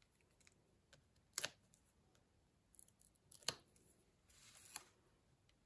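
Faint handling sounds of backing papers being peeled off adhesive foam pads and set down: light clicks and ticks, two sharper clicks about a second and a half and three and a half seconds in, and a brief scratchy rustle near the end.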